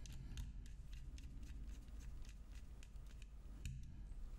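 Faint, irregular small clicks and taps of hands and a screwdriver handling a circuit board and its metal fan plate, over a low steady hum.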